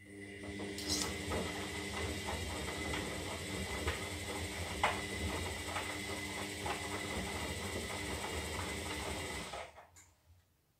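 Zanussi Lindo 300 washing machine turning its drum during a 60-degree synthetics wash: a steady motor hum with a high whine and scattered clicks, starting abruptly and stopping after about nine seconds. This is one of the drum's timed tumble turns in the wash phase.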